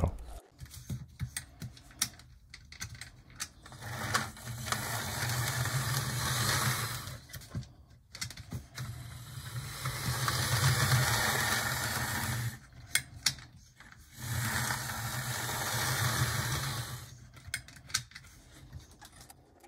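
HO scale Tyco/Mantua 4-6-0 steam locomotive model running on its track, its small electric motor and gears giving a steady whir in three runs of several seconds each. Short clicks and knocks fall in the pauses between runs. The mechanism, which had been seizing, is running again after cleaning and oiling.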